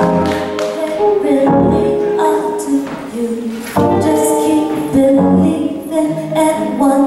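Live soul song on a Korg Grandstage stage piano and guitar, with a woman singing over the chords.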